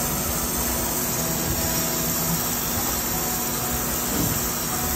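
Storm Vulcan 15AW crankshaft grinder running steadily, its wheel grinding a rod journal on a 454 big-block Chevy crankshaft under spraying coolant: an even hiss over a steady low hum.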